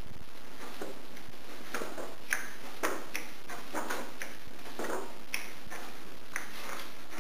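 Pages of a book being turned by hand: a series of short, irregular paper rustles and soft clicks over a steady background hiss.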